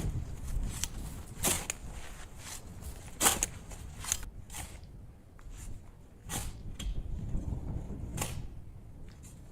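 A few irregular sharp knocks and clicks, a couple of seconds apart, over a low rumbling noise.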